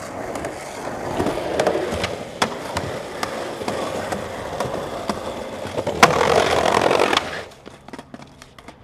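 Skateboard wheels rolling on pavement, with sharp clacks of the board and a slide along a ledge. The noise is loudest for about a second near the end, then drops off.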